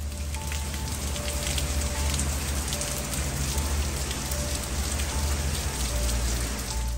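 Rain falling hard on surfaces, a dense steady hiss full of sharp drop ticks, with soft background music underneath. The rain cuts off abruptly at the end.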